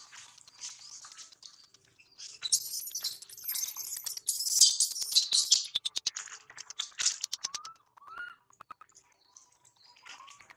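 High-pitched chirping and squealing animal calls, packed densely and loudest from about two and a half to six seconds in, followed by a quick run of clicks and then a few short, separate rising chirps.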